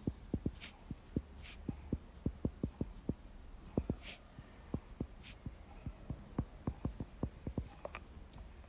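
Light, irregular tapping, several taps a second, with a few brief scratchy strokes, over a low steady hum: a pen or stylus being worked on a writing surface.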